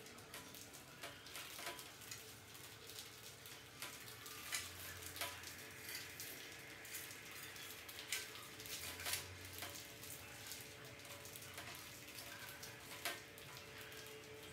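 Rats scrambling over and into a wire-mesh cage trap: faint, irregular scratching and clicking of claws on the wire and wood.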